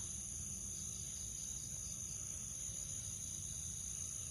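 Crickets trilling steadily in a night insect chorus, a continuous high sound with a faint pulsing chirp beneath it, over a low steady rumble.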